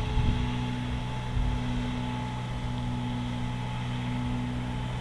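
Steady low mechanical hum with a faint higher whine above it.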